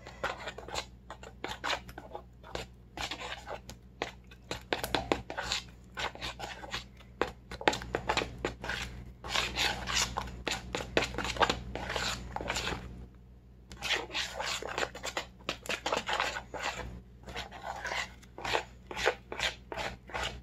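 A fork beating eggs into a thick batter in a bowl: quick, repeated strokes of the fork scraping and clicking through the batter against the bowl, with a short pause about 13 seconds in.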